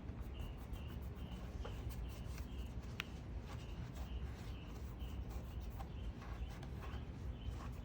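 Rag wiping a surface clean in quick repeated strokes, about two a second, with one sharp click about three seconds in.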